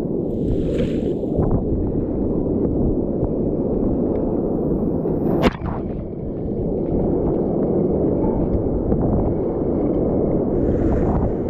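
Steady rush of surf and wind on the microphone out in breaking waves, with one sharp knock about five and a half seconds in.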